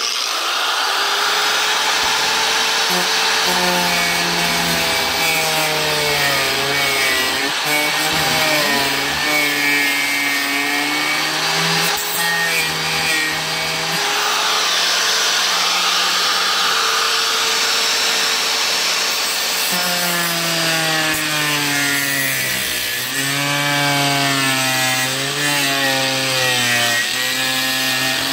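Angle grinder with a cut-off wheel cutting through a fiberglass-reinforced plastic (FRP) camper roof panel. It starts suddenly and runs continuously, its motor whine dipping and recovering in pitch as the wheel loads up in the cut.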